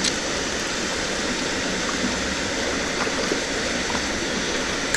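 Steady rush of flowing water, like water pouring over a spillway or outflow.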